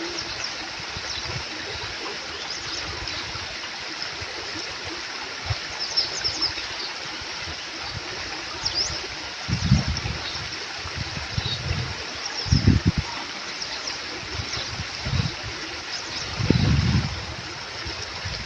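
A small stream flowing and trickling in a steady rush of water, with a few short low bumps about halfway through and near the end.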